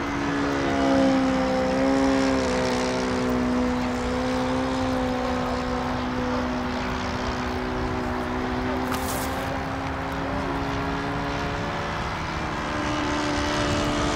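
Motor and propeller of a self-built radio-controlled model airplane in flight: a steady drone that holds its pitch, rising slightly near the end.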